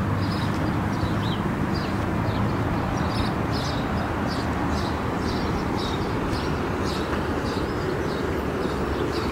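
Škoda Rapid's 1.6 MPI four-cylinder petrol engine idling steadily, heard at the single exhaust tailpipe.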